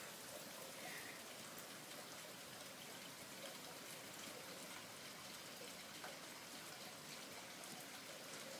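Rain falling steadily: a faint, even hiss with scattered drop ticks.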